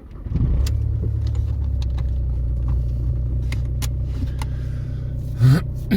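Minivan engine starting up and then idling steadily, with a few light clicks over the running engine and a short louder burst near the end.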